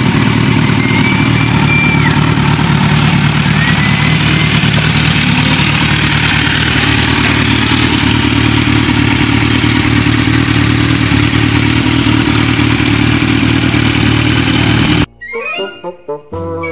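Kawasaki Z1000R's 1043 cc inline-four idling steadily through a single aftermarket carbon slip-on muffler. Near the end it cuts off suddenly and a short music sting follows.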